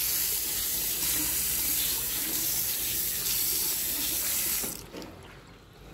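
Tap water running into a wash basin and splashing over a hand rubbing the bowl as it is rinsed. The water stops suddenly about three-quarters of the way through.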